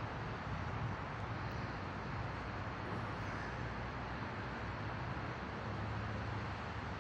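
Steady outdoor background noise: an even low rumble with a hiss over it and no distinct events.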